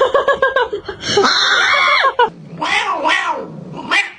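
Cat meowing repeatedly: a quick run of short rising-and-falling calls, a longer drawn-out call about a second in, then a few separate meows.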